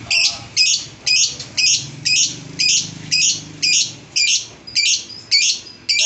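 Lovebird calling in a steady series of short, high-pitched chirps, about two a second.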